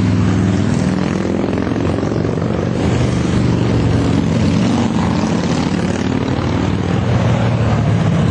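Motorcycle engine running steadily at cruising speed, a constant low drone with a steady rushing noise over it.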